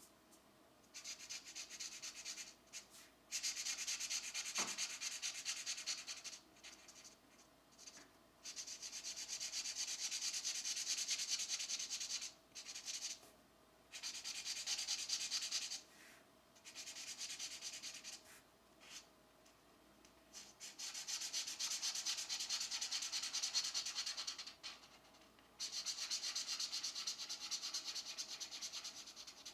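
Pencil shading on coloring-book paper: fast, scratchy back-and-forth strokes in runs of one to four seconds with short pauses between, and a light tap about five seconds in.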